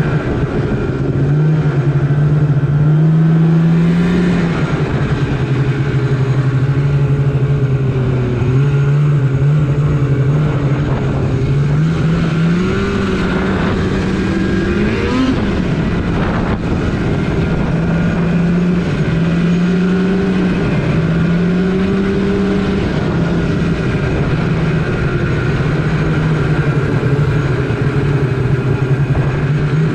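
Snowmobile engine, likely the Polaris RMK, running hard with the throttle going on and off, so the note rises and falls again and again.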